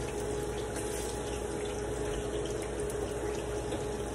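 Ripe plantain slices frying in oil in a pan, a steady sizzle, with a pot bubbling on the gas stove beside it. A steady hum runs underneath.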